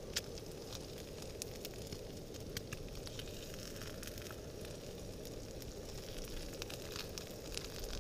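Eggs frying in a pan on a portable gas-canister camp stove: a steady burner hiss with scattered crackles and pops of sizzling fat.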